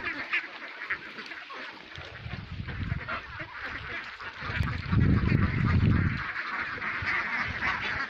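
A large flock of domestic ducks quacking continuously, many overlapping calls at once. A louder low rumble comes in about four and a half seconds in and lasts nearly two seconds.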